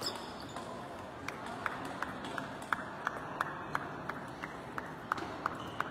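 Table tennis ball knocking in an even run of short, sharp clicks, about three a second, over the steady background noise of a large sports hall.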